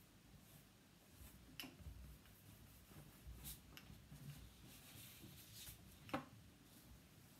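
Near silence with faint sounds of a paintbrush working paint onto paper and being handled: a few soft taps, the sharpest about six seconds in.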